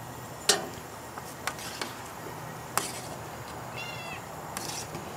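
A few sharp metal clinks of a spoon against a steel cooking pot in the first three seconds, then a cat meowing once, short and high, about four seconds in, over a steady background hiss.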